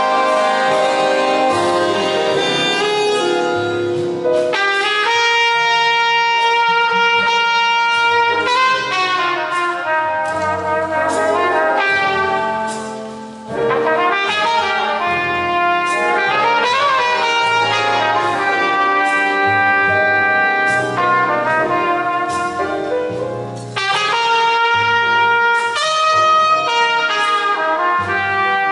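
Jazz trumpet solo on a copper-belled trumpet over a band accompaniment. The trumpet plays long held notes, with a quick bend up and back down in pitch around the middle and a brief break a little before halfway.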